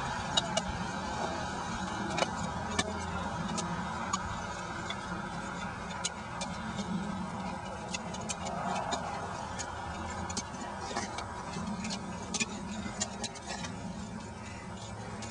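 Rigid plastic honeycomb gravel-grid panels clicking as they are snapped together by hand: irregular sharp clicks, several a second at times, over a steady low background noise.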